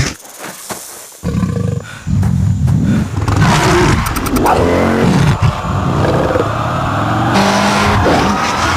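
Motorcycle engine revving, its pitch sweeping up and down. It comes in loud about a second in.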